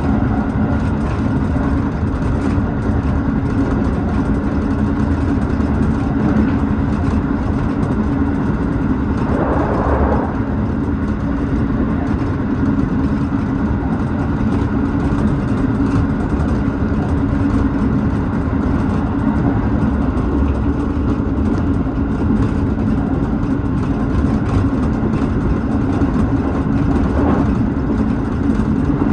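Tobu 6050 series electric train running at speed, heard inside the leading car: a steady motor and gear hum over wheel-on-rail rumble, with a brief rush of noise about ten seconds in.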